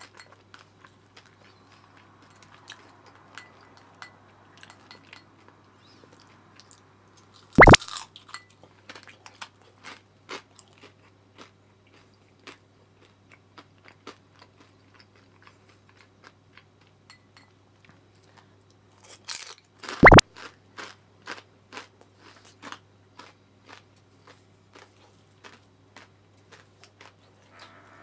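Someone eating crispy deep-fried gyoza: a run of small crunches and chewing, with two loud sharp crunches, one about a third of the way in and one about two thirds in.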